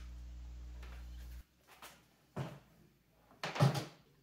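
Low steady mains hum for about the first second and a half, cutting off suddenly, then a few short clicks and clunks of battery-charger clamps and multimeter test leads being handled and clipped together, the loudest near the end.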